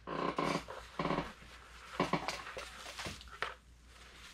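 Long-pile four-way-stretch faux fur rustling as hands pull and smooth it over a sculpted head, in a run of short scratchy bursts that thin out after about three seconds.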